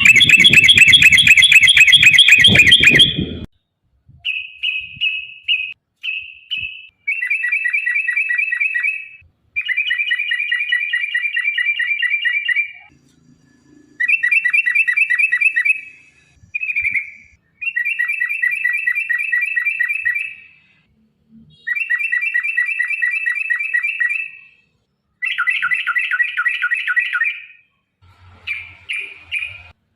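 Yellow-vented bulbul (trucukan) singing a long series of fast rolling trill phrases, each one to three seconds long, with short pauses between them. The first phrase is the loudest.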